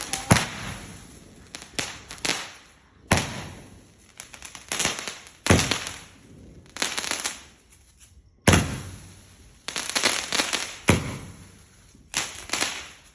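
Fireworks going off in a rapid series of sharp bangs, some followed by crackling, about one every second or two.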